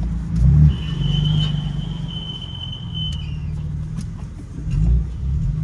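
A high-pitched screeching from the 2018 BMW M3 as it drives slowly, held for about two and a half seconds and then stopping. It sounds over the low running of the car's engine, which swells twice. After the flood, the owner thinks a twig caught under the car made the screech.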